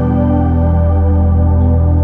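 Background music: slow, held chords over a deep, steady bass note.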